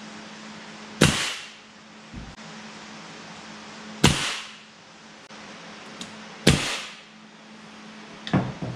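Pneumatic nailer firing three times into a wooden drawer front. Each shot is a sharp crack followed by a short hiss of exhaust air, and the shots come about three seconds apart. Near the end there are a few light knocks as the nailer is set down on the truck bed.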